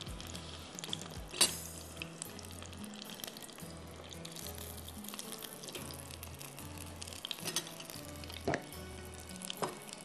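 Batter-coated chicken pieces deep-frying in hot oil in a karahi, a steady crackling sizzle, with a few sharp clicks from utensils against the pan, the loudest about a second and a half in. Background music with a pulsing bass beat runs underneath.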